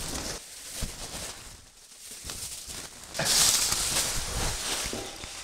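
Aluminium foil crinkling and crackling as it is torn and pulled off a body, loudest from about three seconds in.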